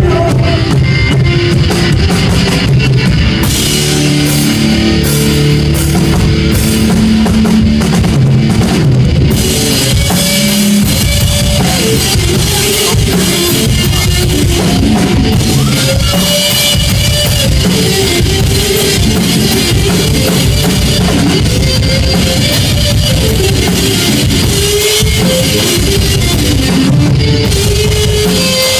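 A live rock band plays loudly: electric guitar and drum kit, with cymbals crashing for a stretch of several seconds. After about ten seconds a bending, sliding melody line runs over the guitar and drums.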